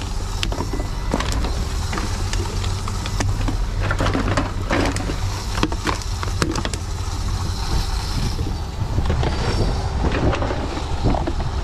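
Plastic bottles and cans clattering and knocking as they are handled and fed into a TOMRA reverse vending machine, with many short irregular clicks over a steady low rumble.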